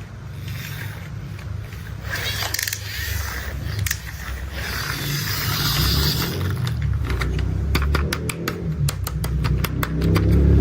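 Construction-machine sound effects: a steady low engine-like rumble with bursts of hissy scraping, then, from about seven seconds in, a fast run of sharp clicks and clanks.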